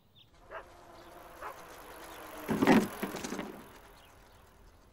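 A bicycle with shocks and pegs rolls up to a small jump, building up noise, then lands hard with a loud clattering thump about two and a half seconds in, and rattles on more quietly after it.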